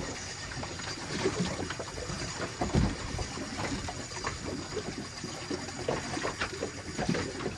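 Water slapping and lapping against the hull of a small anchored boat, with irregular small knocks and splashes.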